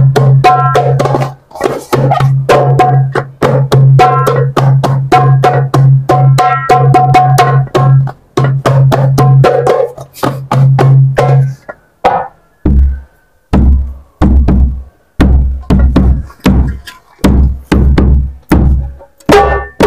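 Newly unboxed hadroh drums being tried out by hand. For about the first eleven seconds there is a quick, steady pattern of strokes over a low ringing drum tone. After a short pause come slower, irregular strokes, each with a deep boom.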